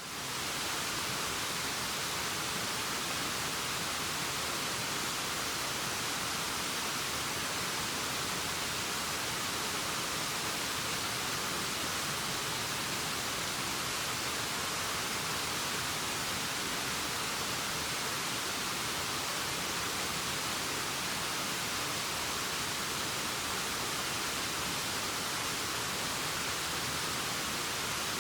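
Steady rushing of a high waterfall: an even, unbroken hiss weighted toward the upper range, fading in at the very start.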